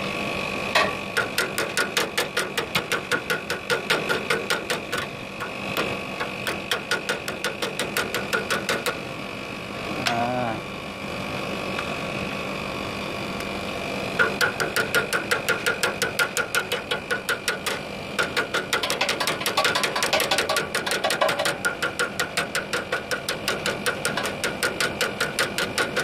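Pliers tapping rapidly and evenly on the air conditioner's refrigerant pipework, about four taps a second, easing off for a few seconds midway, over the steady hum of the running Panasonic 2.5 hp split-system outdoor unit. The tapping is meant to loosen a partial blockage in the filter drier and capillary tube.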